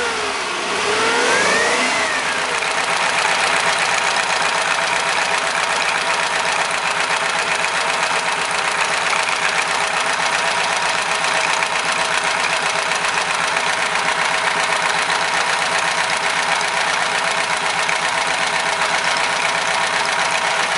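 MeMZ-969B air-cooled V4 engine, freshly rebuilt and being run in, revved briefly so its pitch falls, rises and falls again, then settling to a steady run.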